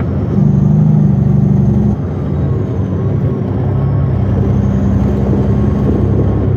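Western Star logging truck's diesel engine running steadily, heard from inside the cab. It is louder for about a second and a half near the start, then settles to an even drone.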